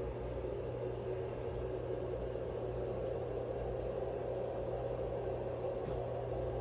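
Steady low hum with a faint even hiss: indoor room tone, with no distinct events.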